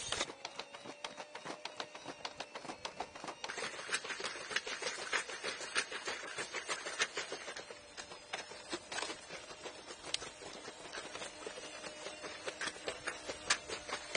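Boston Dynamics Spot quadruped robots walking: quick, irregular clicking and tapping of their feet, over a faint steady whine from the robot's hydraulic drive.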